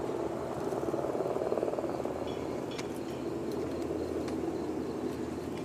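A five-week-old tabby kitten purring: a steady, fast, low rumble.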